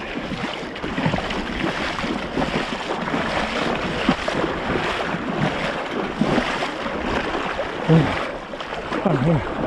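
Legs wading through shallow water, the water sloshing and splashing steadily with each stride. A few short vocal sounds come through in the second half.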